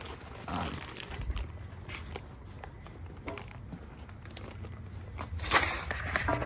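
Scattered light clicks and clinks of exhaust bolts and parts being handled, over a low steady rumble, with a louder burst of noise about five and a half seconds in.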